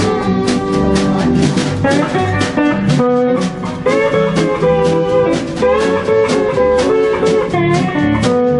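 Live country band playing an instrumental passage: a guitar leads over a steady drum beat and bass.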